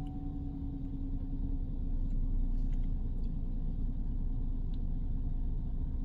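A Chevrolet Silverado 1500 pickup's engine idling, a steady low rumble heard inside the cab, with a few faint ticks.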